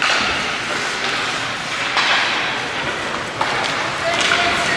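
Ice hockey game sound: skates scraping and hissing across the ice in repeated swells every couple of seconds, over the chatter of spectators.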